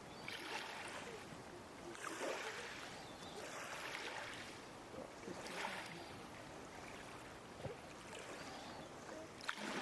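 Creek water splashing and swishing, in soft swells about every two seconds.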